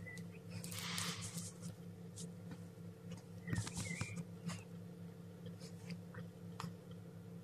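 Newly hatching chicks: a few short peeps, one at the start and two more around the middle, with scratchy rustling and clicking in the wood shavings, over a steady low hum.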